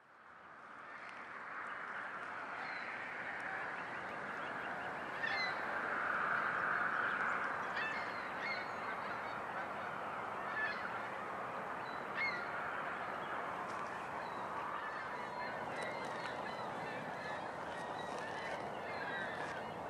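Geese honking: several short calls scattered through, over a steady background din.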